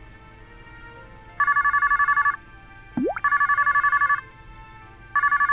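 Cordless phone ringing with an electronic warbling ring, two alternating tones trilling fast. The rings come in bursts about a second long, separated by about a second of pause: two full rings, then a third starting near the end. A short rising blip comes just before the second ring.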